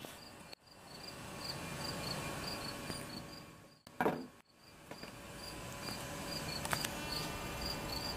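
A cricket chirping steadily in the background, short high chirps evenly repeated, with a brief louder knock about four seconds in.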